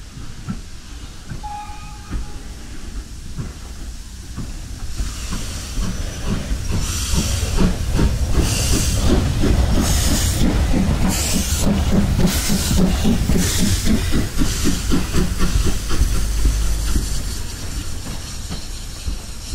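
Steam locomotive working hard as it pulls away: its exhaust beats come slowly at first and then quicken, with hissing steam and a low rumble. It builds up about five seconds in and eases off near the end.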